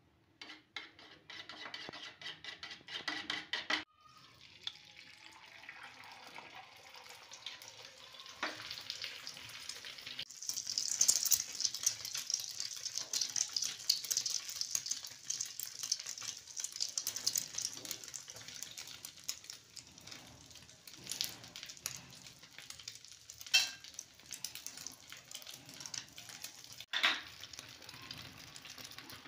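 A metal spoon beats an egg in a bowl with quick, rhythmic clinking strokes for the first four seconds. Then an egg fries in oil on a hot griddle with a steady sizzle, loudest a few seconds after it starts, broken by a few sharp clicks.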